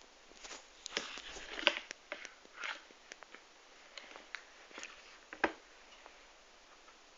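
Tabletop and handling noises while a toddler eats custard from a glass bowl with his hands: scattered sharp clicks and taps, the loudest about one and a half and five and a half seconds in, with short soft rustles in between.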